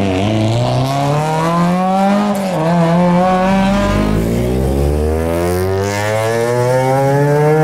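Time-attack race car's engine under hard acceleration. Its pitch climbs, dips briefly about two and a half seconds in, then rises steadily for several seconds.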